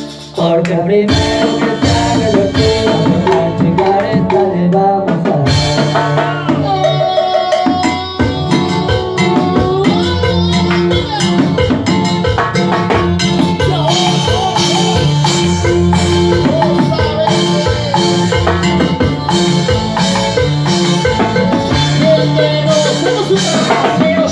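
Cumbia music played by a band: a drum kit and hand percussion keep a steady beat under a keyboard melody, with a few sliding notes about seven seconds in.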